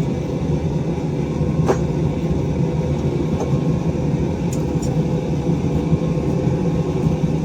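Forge running with a steady low rumble, with one faint tick about two seconds in.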